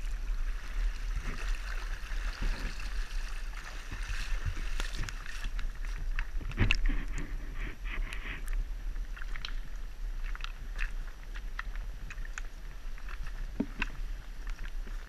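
Shallow creek water running over a gravel bed, picked up close to the surface by a waterproof action camera, with scattered small clicks and knocks, one louder about seven seconds in.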